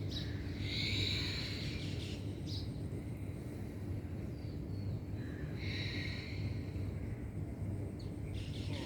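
Steady low hum with a bird calling twice, each call about a second long: once about a second in and again near the middle.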